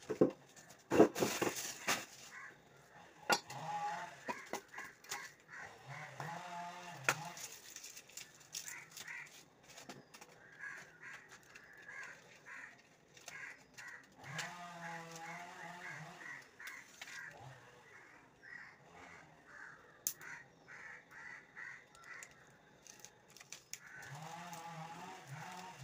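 Animal calls: several drawn-out wavering calls and runs of short, harsher calls, with scattered sharp clicks between them.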